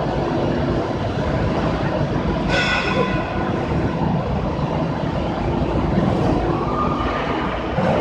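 Sawdust charcoal-making machinery running with a loud, steady industrial rumble and hum. A brief high-pitched sound cuts in about two and a half seconds in, and a short steady tone comes near the end.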